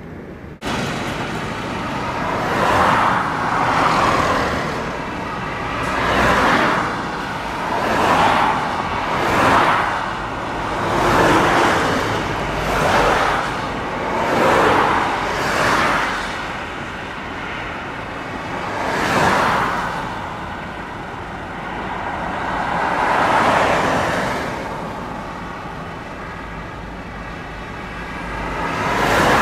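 Road traffic passing a level crossing: a string of cars and lorries, including an articulated lorry, going by one after another. Each one is a swell of tyre and engine noise that rises and fades, about a dozen in all.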